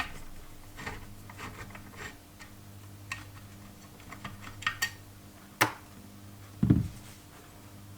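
Small clicks and taps of hands handling cables, connectors and parts inside a small PC case, with one sharp click a little past halfway and a low thump about a second later. A steady low hum runs underneath.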